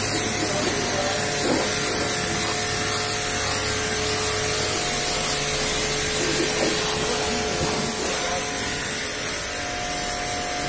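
Pressure washer jetting water onto a car's body: a steady hiss of spray with the washer's motor humming underneath. A low part of the hum drops out about halfway through.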